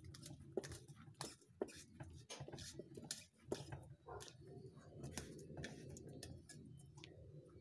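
Faint, irregular clicks and light taps, about one or two a second, from steel pliers handling a 3D-printed resin bullet mold.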